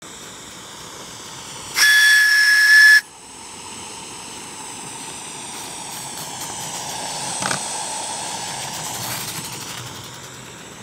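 A steam whistle gives one steady, high blast of just over a second, about two seconds in. A hiss of steam follows and slowly builds, with a single sharp click partway through.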